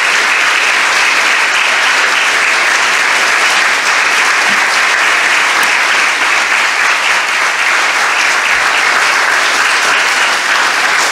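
Congregation applauding: many people clapping in a steady, unbroken round.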